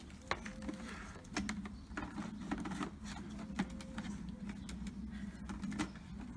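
Irregular clicks and light rattles of plastic and hose as an electric pressure washer's hose and cable are unwound and handled, over a steady low hum.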